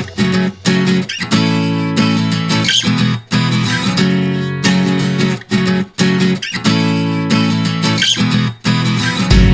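Background music led by strummed acoustic guitar, with the chords changing every second or so and brief breaks between phrases.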